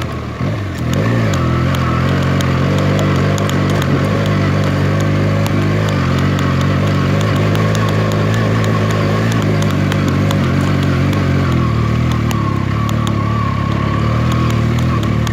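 Benelli TNT 300's parallel-twin engine running steadily under way, its pitch dipping and rising again about half a second in, then holding steady, with scattered small clicks over it.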